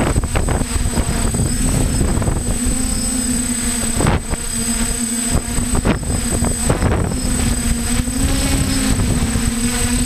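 DJI F550 hexacopter's motors and propellers humming steadily in flight, the pitch shifting slightly as it holds position, heard through the onboard GoPro with heavy wind buffeting the microphone.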